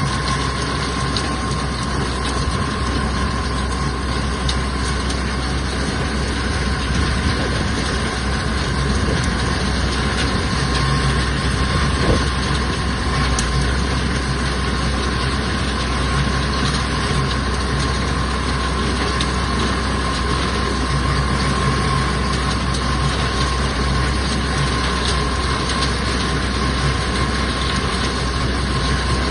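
A tractor engine running steadily while it drives a beater wagon's PTO-powered horizontal beaters as they spread mulch. The machinery's noise is even, with a low hum and a steady whine through it.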